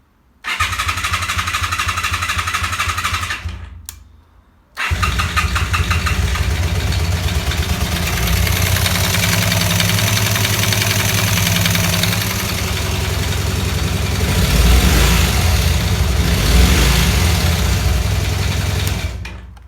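Honda VT250F V-twin engine being started: a first burst of about three seconds stops, then after a short pause the engine starts again and keeps running. The running engine has a weird sound whose cause the owner does not know.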